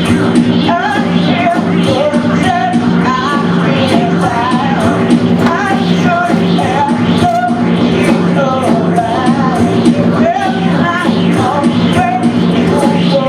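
Live band playing a song, with a wavering sung or lead melody over sustained low notes and a steady drum beat.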